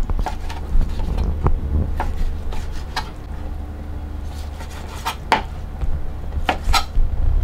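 Chef's knife chopping cooked lobster meat on a plastic cutting board: irregular knocks of the blade against the board, a few sharper ones a little after halfway. A steady low hum runs underneath.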